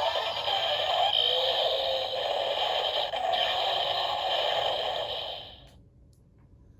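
Kamen Rider Zero-One Driver toy belt playing the Rampage Gatling Progrise Key's electronic sound effects through its small speaker. The tones fade out after about five and a half seconds, leaving near silence.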